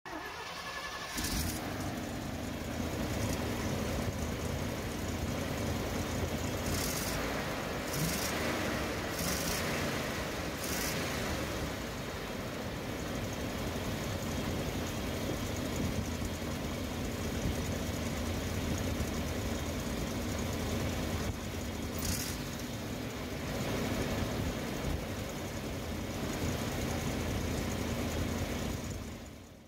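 1992 GMC C7's 6.0-litre gasoline V8 running steadily with the hood open.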